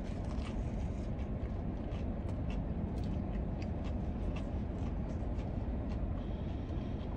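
A person biting into and chewing a crispy fried chicken sandwich, with faint scattered crunches, over a steady low hum inside the car's cabin.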